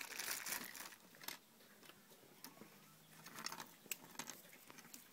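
Plastic bag crinkling and betel leaves rustling as hands prepare a betel quid. The crackle is densest in the first second, then thins to faint scattered rustles and small taps.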